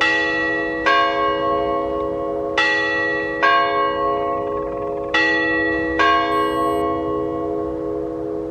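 Church clock bell striking seven o'clock, six of the strikes falling here in uneven pairs, each stroke ringing on and overlapping the next. The hum fades slowly after the last strike, a little past the middle.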